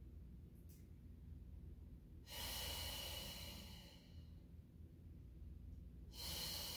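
A woman's slow breathing: two long, airy breaths, the first about two seconds in and the second near the end.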